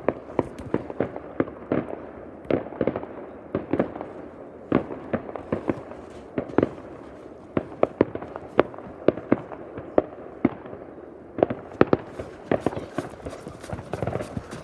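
New Year's fireworks going off all around: an irregular, continuous string of sharp bangs and pops, several a second, over a steady rumble of more distant explosions. A thicker burst of loud bangs comes near the end.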